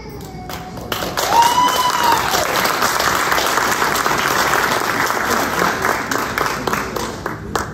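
Audience applauding, starting about a second in and stopping near the end, with one rising-and-falling whooping cheer about a second and a half in.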